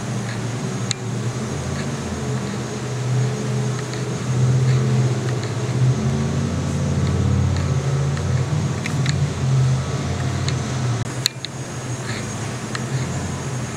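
A steady low rumbling drone that swells about halfway through and eases off again, with a few faint short high squeaks scattered over it.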